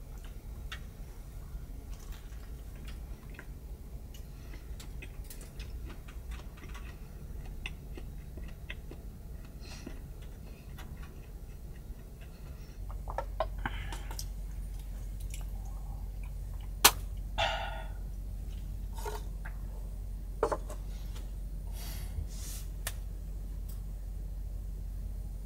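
Quiet room tone with a steady low hum that gets a little louder about halfway through. Scattered small clicks and short rustles come from handling a sandwich and its plastic packaging while eating.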